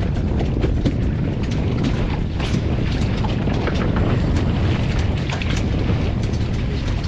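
Wind buffeting the microphone as a steady low rumble, with many short clicks and taps scattered through it.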